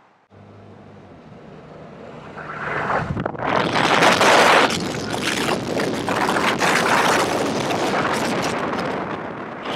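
A car's low engine hum, then from about two and a half seconds in a loud, uneven rush of wind over the microphone through an open car window as the car drives along.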